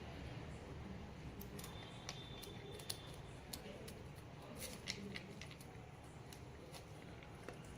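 Labrador eating: irregular sharp crunching clicks, a few louder than the rest, over a low background hum.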